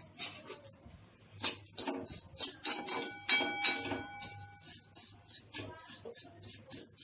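Metal spatula scraping and clinking against a stainless steel kadhai while stirring dry vermicelli as it roasts in a little ghee. The pan rings briefly about three seconds in.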